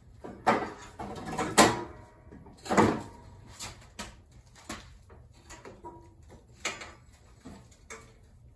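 Knocks and clatter of a Craftsman riding mower's steel frame and plastic body being tipped up onto its rear wheels. The loudest knocks come in the first three seconds, followed by lighter clicks and taps.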